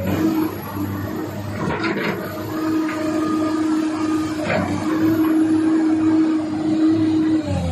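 Komatsu PC240LC-8 excavator's six-cylinder diesel engine running, with a steady whine over it and a few short knocks, about two and four and a half seconds in.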